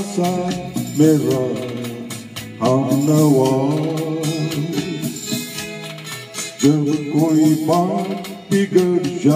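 Background music: a song with a voice singing over instruments and percussion.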